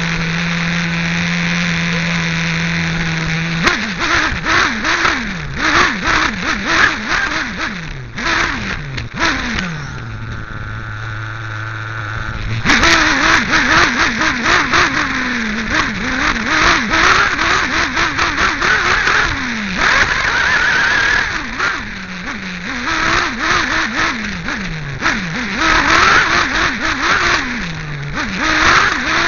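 Nitro glow engine of a Team Associated RC8B 1/8-scale buggy, heard close up. It idles steadily for the first few seconds, then revs up and down over and over as the buggy is driven. About ten seconds in it drops to a lower idle for a couple of seconds before revving again.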